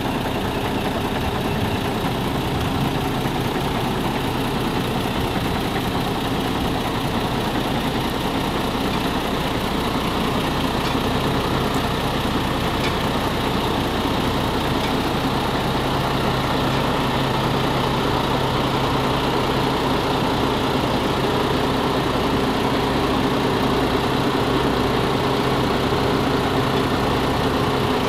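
MAN TGS 32.400 concrete mixer truck's six-cylinder diesel engine idling steadily.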